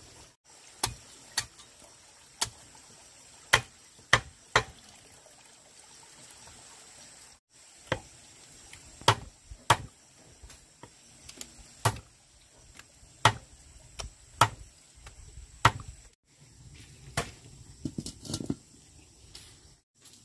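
Cleaver chopping on a thick wooden chopping block: single sharp chops at an uneven pace of about one a second, some in quick pairs.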